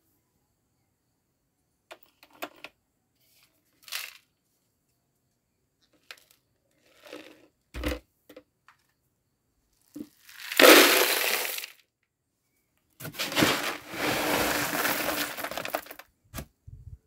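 Dry mixed grain (corn kernels and other seeds) poured into a metal bucket, rattling and hissing in two pours, the second longer, after a few scattered knocks and clicks.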